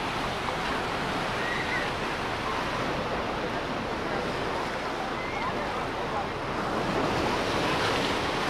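Ocean surf washing up on a beach, a steady rush of waves that grows a little louder about seven seconds in.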